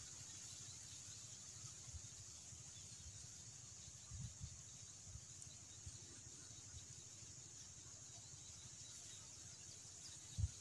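Faint rural outdoor ambience: a steady high insect chirring, with low wind rumble on the microphone and a couple of low thumps near the end.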